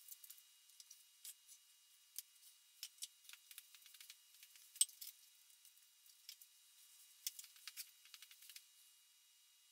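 Faint, scattered clicks and crinkles of hands handling tape, wood and plastic sheeting, with one sharper click about five seconds in.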